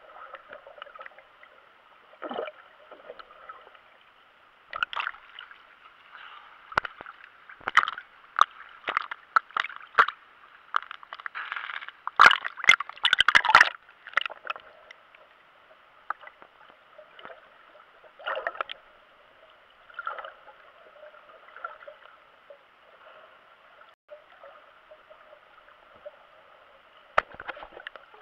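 Muffled underwater sound heard through a GoPro's waterproof housing: a steady hiss with scattered clicks, knocks and gurgling of moving water, building to a busy, loud cluster of splashing and bubbling about halfway through.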